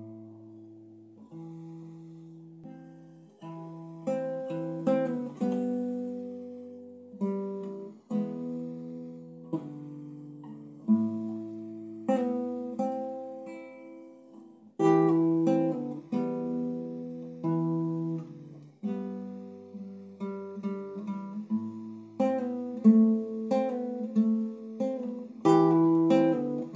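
Classical guitar played solo in a Latin American folk style: plucked chords and single-note lines, each ringing and fading before the next.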